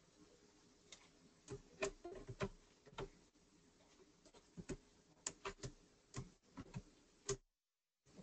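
Computer keyboard being typed on: a faint, irregular run of key clicks, several a second, stopping abruptly near the end.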